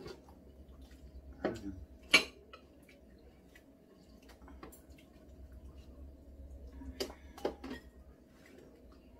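Chopsticks and a spoon clinking against bowls and a pot at a meal: a few sharp clicks, the loudest about two seconds in and a small cluster near the end. A faint steady hum runs underneath.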